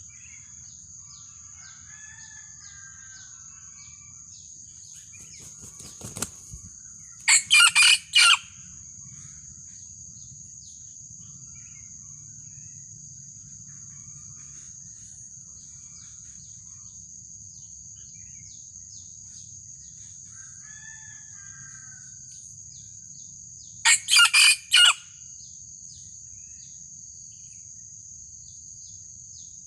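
Junglefowl rooster crowing twice, each a short crow of about four quick notes, used as a lure call to draw out a rival cock; a burst of wing flapping comes just before the first crow. A steady high insect drone runs underneath.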